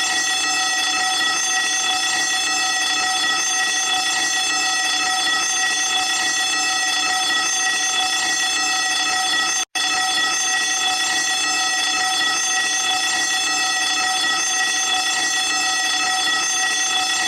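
Fire alarm sounding: a loud, steady, unbroken electronic tone rich in overtones, cutting out for an instant about ten seconds in.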